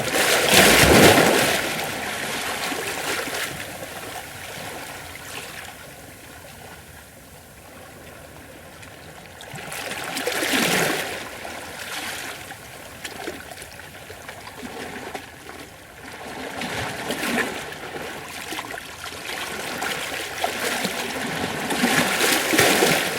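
Gentle ocean waves washing against rocks, with splashing and trickling water between surges. Four larger surges: about a second in, near the middle, a smaller one later, and a last one near the end.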